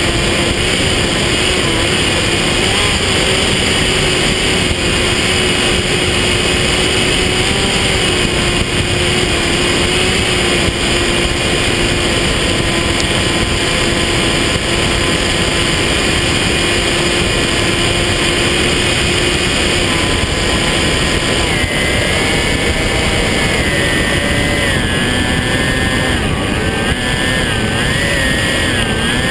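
Electric pusher motor and propeller of an RC foam plane running in flight, heard from on board under heavy wind rush over the microphone. A steady whine until about two-thirds of the way through, then the tone shifts higher and wavers as the throttle changes.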